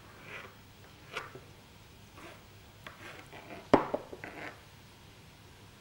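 Light clicks and knocks of roasted red pepper being cut into strips on a plastic cutting board, with one sharper knock just under four seconds in, followed by a few smaller ones.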